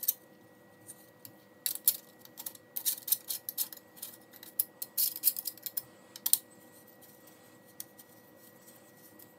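Light metallic clicks and scrapes of an Allen key working the screws of a Sage EBR chassis's top handguard cover, in quick clusters for the first six seconds or so, then only a few single clicks.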